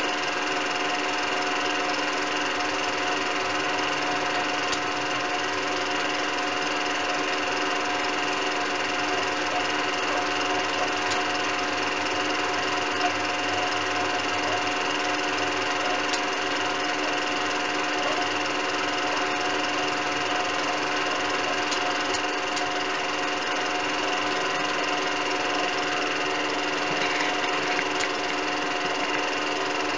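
Steady mechanical whir of a film projector running, with several held tones over a fine clatter and no change in pitch or level.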